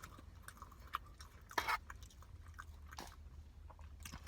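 Close-up chewing sounds of someone eating chicken biryani: irregular wet mouth clicks, with a louder crackle about a second and a half in and another near three seconds.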